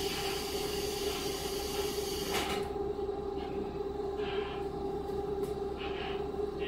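Cabin sound of a KiHa 40 series diesel railcar under way: a steady engine drone with a constant hum and rail noise. A hiss runs through the first two seconds or so and ends with a short knock.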